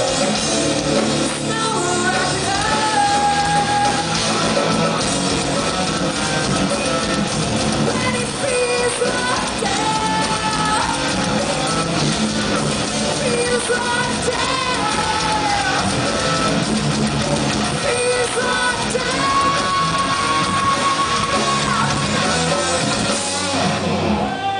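Hard rock band playing live in a club, with distorted electric guitars, bass and drums and a woman singing. The music is loud and dense throughout.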